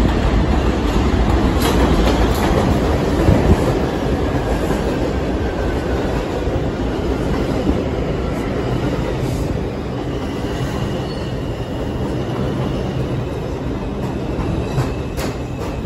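A New York City subway train pulling into an elevated station, its steel wheels rumbling and clacking over the rails on the steel structure. A whine falls in pitch as the train slows, and thin high wheel or brake squeals come in during the second half.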